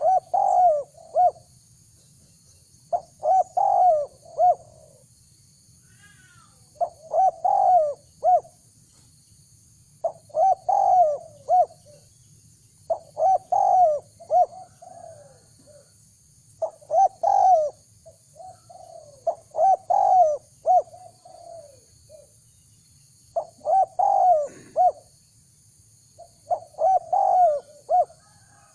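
Spotted dove cooing its song: a short phrase of three to five coos, repeated about every three seconds. A steady faint high-pitched hum runs underneath.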